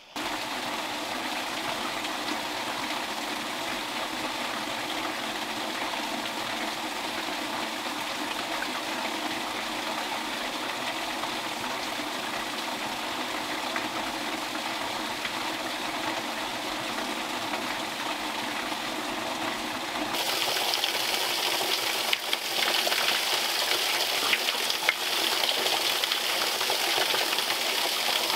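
Water running steadily; about two-thirds of the way through it gives way to a louder, hissing rush of pond water pouring down into a concrete drain shaft through an unplugged outlet, the pond being drained.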